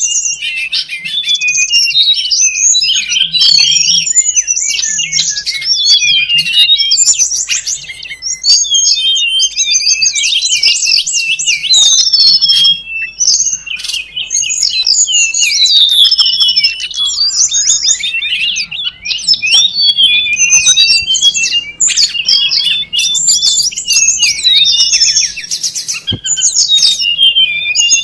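A dense, unbroken chatter of many high, quick chirps and trills from tledekan gunung birds overlapping one another: a lure call recording meant to draw the birds in.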